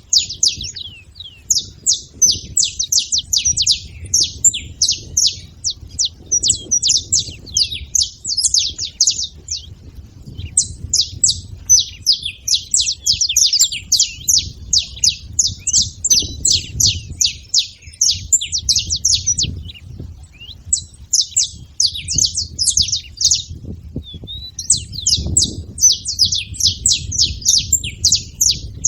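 Saffron finches chirping and singing: rapid runs of high, sharp notes in bursts of a few seconds with short breaks, over a low background rumble.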